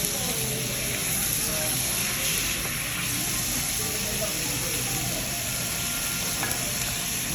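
Chicken sizzling in a hot stone hotpot, a steady hiss, with faint voices in the background.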